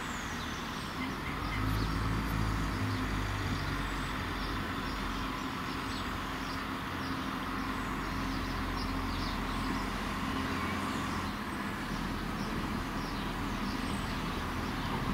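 Diesel multiple-unit passenger train approaching slowly, its diesel engine running with a steady low drone that grows a little louder about a second in. Small birds chirp now and then.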